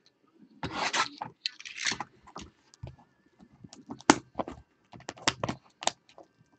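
Shrink wrap on a sealed trading-card box being slit and torn open: two scratchy tearing sounds about a second in, then scattered crinkles and clicks of plastic being worked off.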